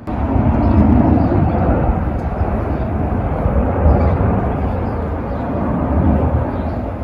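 Airplane flying overhead: a loud, steady drone that comes in suddenly at the start and eases a little near the end.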